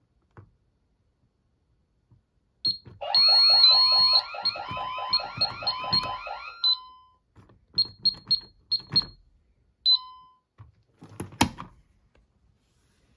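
Ademco 6137 alarm keypad's sounder giving a loud, fast warbling alarm tone for about four seconds. Several short, high key-press beeps follow, then a single sharp click near the end.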